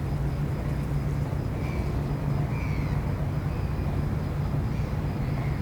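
Steady low mechanical drone over outdoor noise, with short, high, falling bird chirps every second or so.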